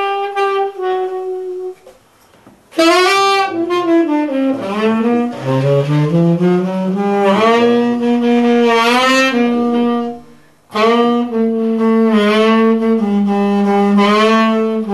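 Tenor saxophone played solo: held notes, a short break about two seconds in, then a long slide down into low notes that climb back up in steps, and a brief pause near ten seconds before more held notes.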